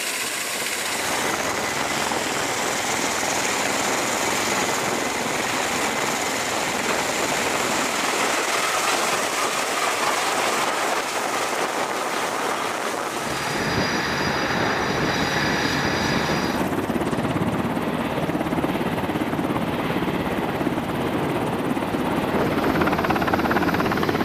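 Turbine engines and rotors of military rotorcraft running: first a CMV-22B Osprey tiltrotor on deck and climbing away. A little over halfway the sound shifts to a heavier, deeper rotor noise, ending on an MH-60 Seahawk helicopter with its rotors turning on deck.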